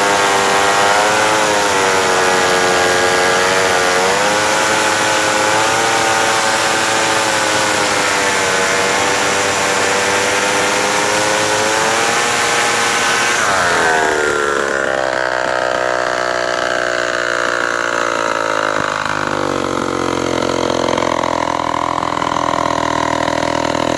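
Power Products AH-81 two-stroke engine of a vintage Mono chainsaw running under load as its chipper chain cuts through a log, the engine pitch wavering. About fourteen seconds in, the cutting hiss stops and the engine falls to a lower, uneven speed.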